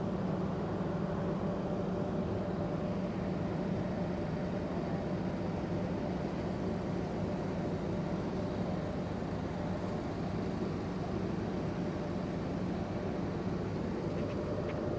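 Ferry's engines droning steadily, a constant low hum with a steady higher tone over a wash of noise.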